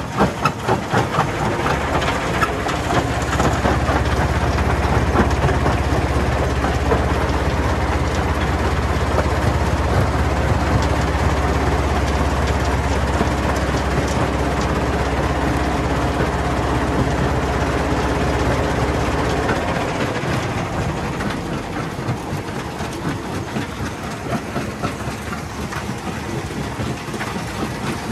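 Stone jaw crusher running and crushing rocks as they are fed into its jaws: a loud, steady mechanical noise over a low drone from the drive. The drone drops away about two-thirds of the way through.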